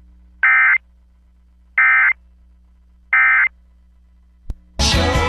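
Three short bursts of NOAA Weather Radio SAME data tones, the End of Message signal that closes a warning broadcast. The bursts are evenly spaced about 1.3 seconds apart. Near the end a click is heard, and then music starts.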